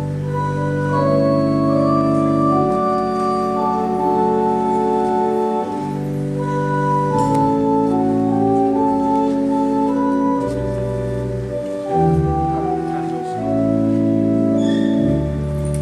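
Church pipe organ playing slow, sustained chords over deep pedal notes, the harmony shifting every second or two.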